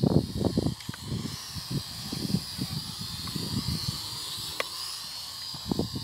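Banshee Zero X quadcopter drone's propellers whining at a high, slightly wavering pitch as it hovers low, with gusts of wind buffeting the microphone, heaviest in the first second and again near the end.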